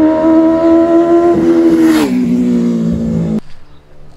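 Benelli 600i's inline-four with an SC Project exhaust, passing by at high revs: a steady high engine note that drops in pitch about two seconds in as the bike goes past, then cuts off suddenly near the end.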